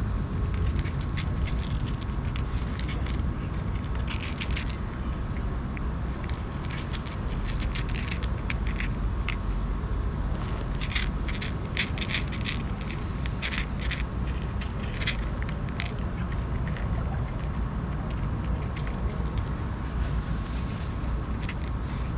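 A cat crunching dry kibble: irregular crisp crunches in clusters, densest about halfway through, over a steady low rumble of street traffic.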